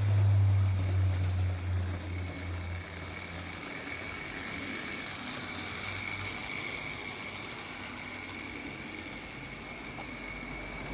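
Model railway diesel shunter's small electric motor running as it pulls a short train of wagons along the track, with a steady high whine and a low hum that is loudest in the first few seconds and fades away.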